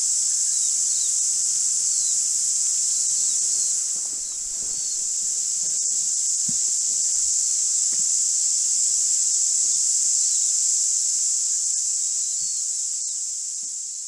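Cicada chorus: a steady, high-pitched shrill that dips briefly about four seconds in, with a few faint chirps beneath it.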